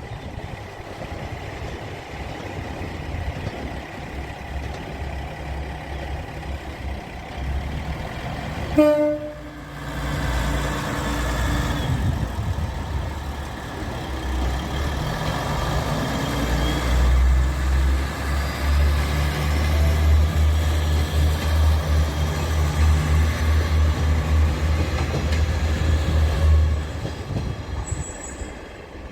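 Diesel railcars running past. A short horn blast sounds about nine seconds in, then a heavy engine rumble builds and stays strong through most of the second half before fading near the end.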